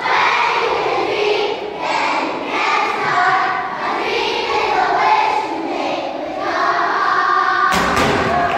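A large group of young children singing together. Near the end comes a single thump.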